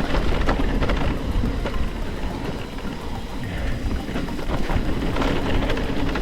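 Mountain bike descending a rutted dirt trail: wind buffeting the camera microphone and tyres rumbling over the dirt, with scattered sharp clicks and rattles from the bike.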